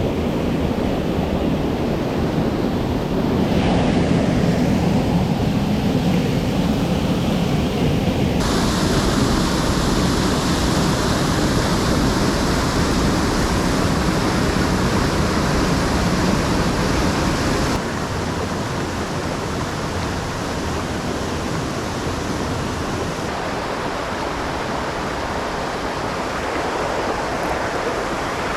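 Steady rushing of a mountain stream's water, changing abruptly in character a few times.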